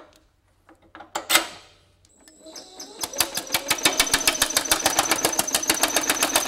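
A single sharp metal knock about a second in, then a sheet-metal power hammer fitted with a planishing die starts up. It strikes a steel panel in fast, even blows, about ten a second, with a ringing metallic tone, running in its spring-loaded, Yoder-type mode for planishing.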